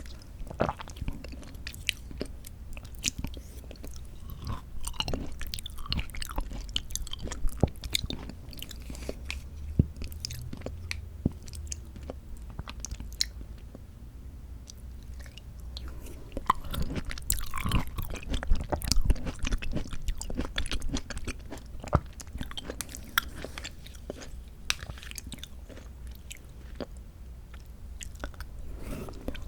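Close-miked chewing of canned mandarin orange segments from a fruit cup: mouth sounds with many sharp clicks throughout, busiest a little past midway.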